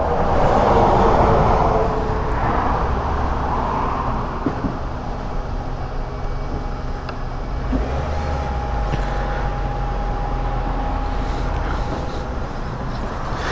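Motor vehicle noise: a steady engine rumble mixed with road-traffic hiss, a little louder in the first couple of seconds.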